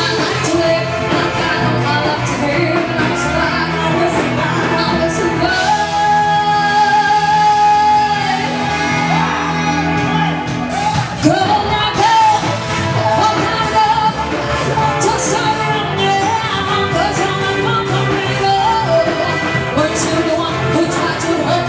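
Live pop band playing, with women singing lead into microphones over electric guitar and a steady drum beat. The singers hold long notes a few seconds in.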